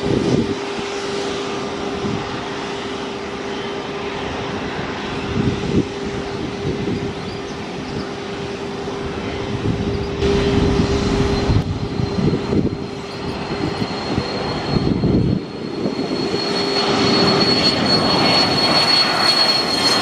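A Learjet business jet's twin rear-mounted turbofan engines running at low power while taxiing, with a steady hum. A high whine builds through the second half and the sound grows louder in the last few seconds as the engines spool up for the takeoff roll.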